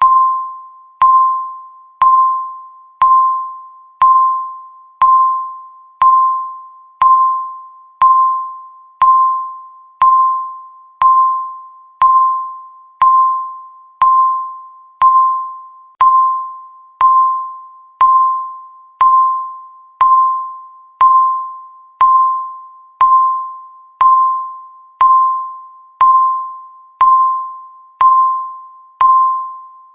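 Countdown timer's tick sound: one clear ding per second, each starting sharply and fading away before the next, marking the seconds.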